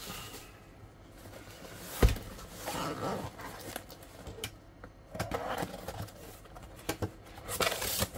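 Cardboard parcel being handled on a desk and its taped flaps pulled open: one sharp knock about two seconds in, the loudest sound, then scattered scraping and rustling of cardboard and paper packing.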